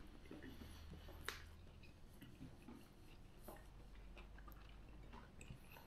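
Faint chewing of a fried chicken burger, with a few soft mouth clicks, over near silence.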